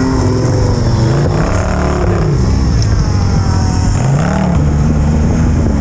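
Can-Am Maverick X RS side-by-side's turbocharged three-cylinder engine revving hard as it claws up a slope, its pitch swinging up and down several times, with the wheels spinning in the leaf litter.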